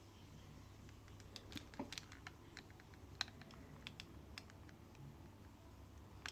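Faint, irregular light clicks and taps of hands handling small hard objects, one sharper click a little after three seconds in, over a low steady hum.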